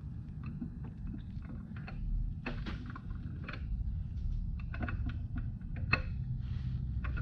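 Scattered metallic clicks, knocks and scrapes as the camshaft is worked out of a Gen III 5.3 LS block, its lobes catching on the cam bearings where it is a little tight. One sharper click comes about six seconds in, over a steady low rumble.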